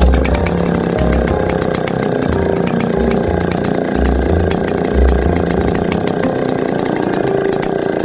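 Loud music with heavy bass notes and a dense, buzzing, distorted texture over a steady tick, played through a sound system being tested.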